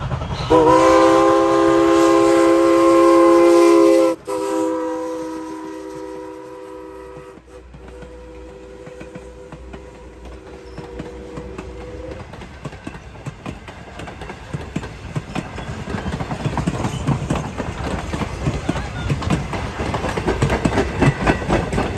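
Steam locomotive No. 89's chime whistle blows a long blast of several notes at once, then a second blast that fades away. The passenger coaches then roll past close by, wheels clicking over the rail joints and growing louder near the end.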